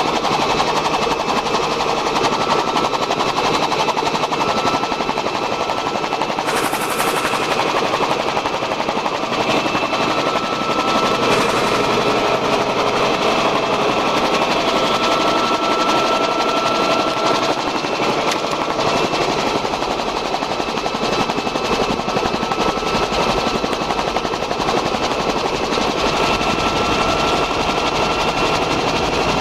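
Bell 47 helicopter in flight, heard from inside the cabin: the piston engine and main rotor run steadily with rapid, even beating, and a steady high whine runs through it.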